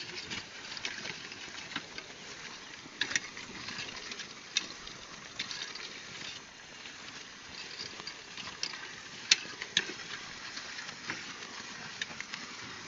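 An animal-drawn plough working a field: a faint rustle of soil and movement, broken by scattered sharp clicks and knocks.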